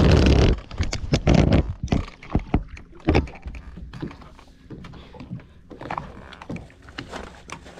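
Knocks and thumps on a fishing boat, loudest in the first second and a half, then lighter scattered clicks and taps.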